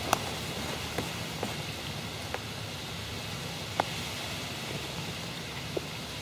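Light rain falling: a steady even hiss, with scattered single sharp ticks of drops striking something close by.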